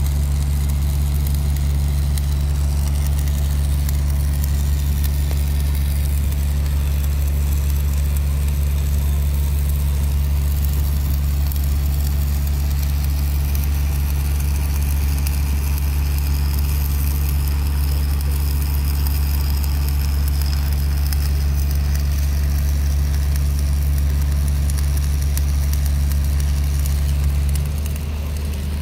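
Heavy diesel engine of a piling crawler crane idling steadily with a deep, even hum. The pitch drops and the level eases slightly near the end. No pile-hammer blows are heard.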